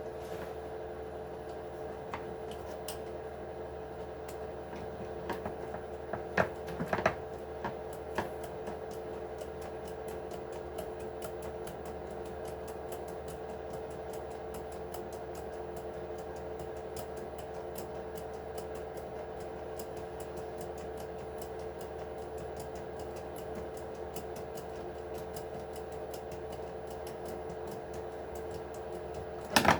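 Steady electrical hum, as from a fan or appliance, with light clicks and knocks from small parts and tools being handled while the RC truck is taken apart: a cluster about six to eight seconds in and a sharper knock at the very end.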